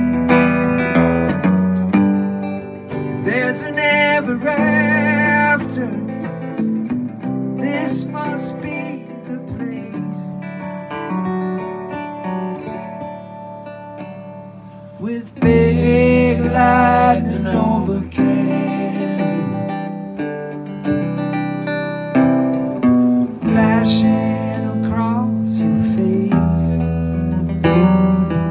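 An archtop hollow-body electric guitar and an acoustic guitar playing an instrumental break together, with quick melodic runs over the chords. The playing thins out in the middle and comes back in full about halfway through.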